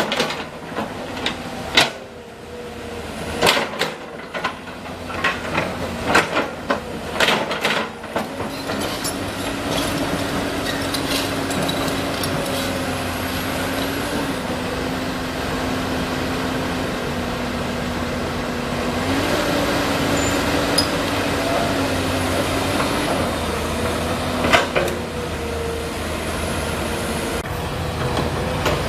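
Komatsu PC200 hydraulic excavators at work: a diesel engine runs steadily under load, its pitch stepping up and down a few times as the hydraulics work. A flurry of sharp metallic clanks fills the first several seconds, with a couple more near the end.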